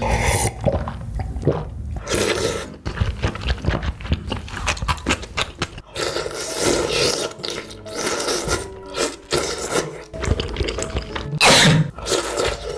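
A person slurping noodles and chewing in quick, irregular bursts, with the loudest slurp near the end.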